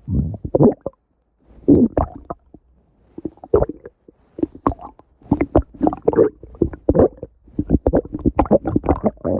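A person's stomach growling: a run of short, irregular gurgles and rumbles, with pauses in the first few seconds, then coming thicker and faster near the end.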